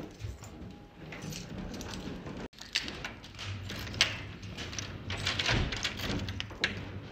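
A key jangling on its tag as it is worked in the lock of a wooden lattice door, with several sharp metallic clicks from the lock and door.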